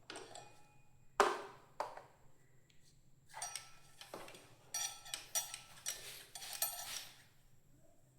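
Metal clinks and scrapes of tools on a motorcycle's rear brake caliper as the piston is pushed back to make room for new brake pads: a sharp knock about a second in, then a run of clinking and scraping from about three to seven seconds in.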